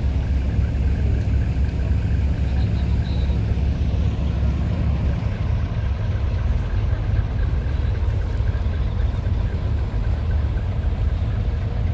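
Large diesel lorry engines idling: a steady low rumble that eases slightly about five seconds in.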